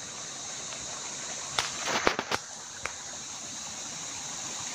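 Steady rush of a rocky stream, with a short cluster of sharp clicks and knocks about two seconds in.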